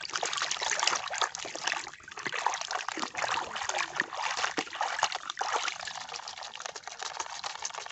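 Muddy water sloshing and splashing in a metal basin as a hand scrubs a toy bus under the surface: a continuous run of small, quick splashes and trickles.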